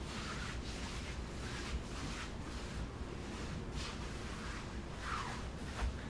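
Soft, repeated swishes of feet sliding across a wooden stage floor, about two a second, with the rustle of a stiff costume. A soft thump comes near the end.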